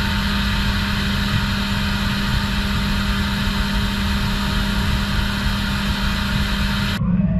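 Syil X7 CNC mill's spindle running steadily with a constant hum while a fine engraving tool cuts lettering into an aluminum part. The sound cuts off suddenly near the end.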